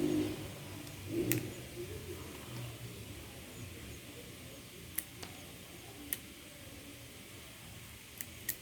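An engine fades away in the first second, then a quiet background with a handful of sharp, isolated clicks.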